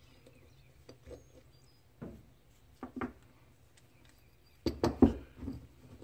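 Small metal fuel-injector parts handled on a wooden workbench: a few light clicks and taps, then a cluster of louder knocks near the end.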